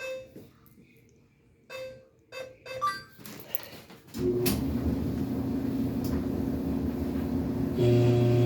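Clothes dryer making an unexplained loud noise: after a few faint short sounds, a loud steady humming drone with a rumble sets in about four seconds in, and the hum gets stronger and deeper near the end.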